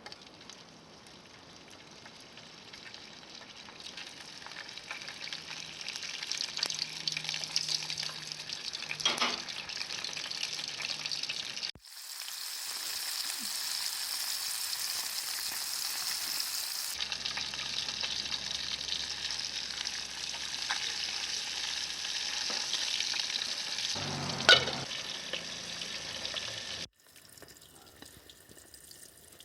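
Small horse mackerel deep-frying in hot oil, a dense sizzling crackle that grows louder over the first several seconds, with one sharp pop about 24 seconds in. The sizzle stops abruptly near the end.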